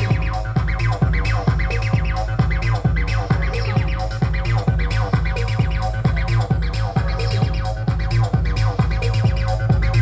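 Electronic dance music from a DJ's decks over a club sound system: a steady kick drum about twice a second under held synth tones.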